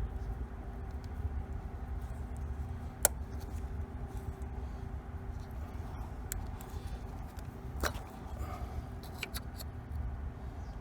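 A few sharp clicks, the loudest about three seconds in and another near eight seconds, as the plastic connectors are unclipped and the ignition coils are pulled from a Hyundai Elantra engine, over a steady low hum.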